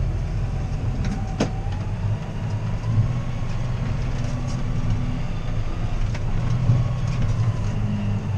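John Deere 6R tractor's diesel engine running steadily, with a faint whine that slowly rises in pitch and later falls back.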